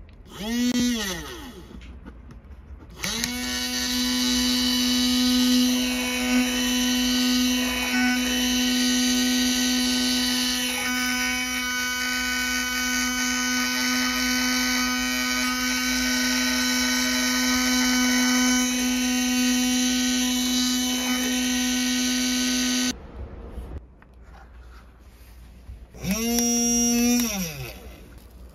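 Tamiya Sport-Tuned DC 380 brushed motor of a mini drill press running on 5 V. It starts with a brief spin-up and spin-down about half a second in. Then it runs at a steady pitch for about twenty seconds before cutting off suddenly, and near the end it makes another short run that rises in pitch, holds, and winds down.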